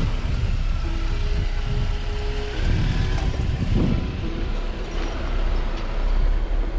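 4x4 vehicle driving on an off-road trail: a steady low engine and drivetrain rumble.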